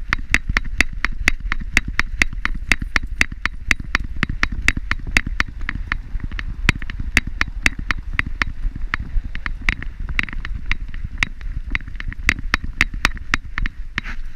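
Sharp, regular clicking, about four or five a second, in step with a walking dog, picked up by a camera strapped to its harness, over a low rumble of movement.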